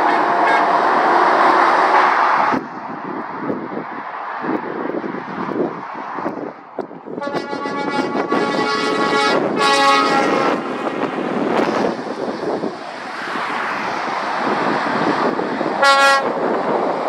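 Lorries passing on a dual carriageway with steady tyre and engine noise, and lorry air horns sounding: a long blast about seven seconds in, a second blast just after it, and a short toot near the end.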